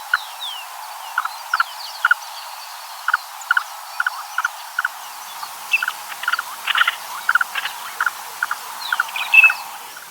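Wetland chorus: frogs calling in short, repeated croaking notes, a couple a second, with small birds chirping in thin rising and falling calls above them.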